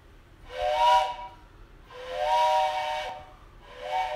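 Train whistle sounding a chord of several notes, blown three times. Each blast lasts about a second, the middle one longest, and each has a hiss of escaping steam over it.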